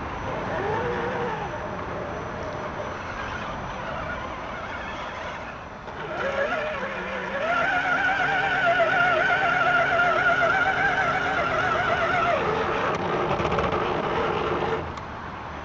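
Radio-controlled scale crawler's electric motor and gears whining, the pitch rising and falling with the throttle. About six seconds in it grows louder and higher, holding a wavering whine for several seconds as the truck drives through muddy water, then drops back near the end.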